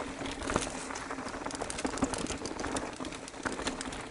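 Mountain bike riding over rough, rocky singletrack: tyres on dirt and stones, with frequent small knocks and rattles from the bike.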